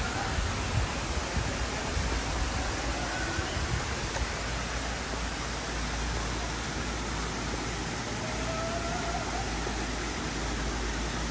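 Steady rushing splash of water pouring off the end of a waterslide into a pool.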